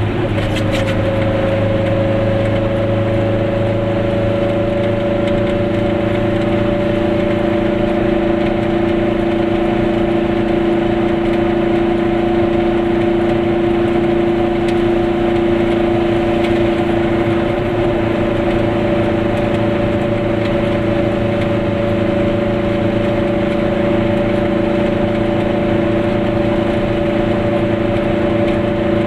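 Car engine droning steadily in the cabin while the car cruises at a constant speed, with road noise underneath.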